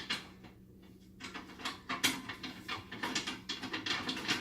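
Quick, fairly even clicks and knocks of metal parts on a 1-800 bulk candy vending machine being handled, starting about a second in, as the lock is fitted.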